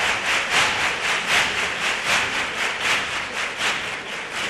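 Theatre audience clapping in unison at about two and a half claps a second, slowly dying away toward the end.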